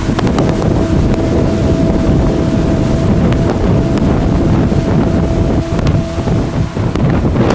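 Motorboat engine running steadily under way, with a constant drone, and wind buffeting the microphone.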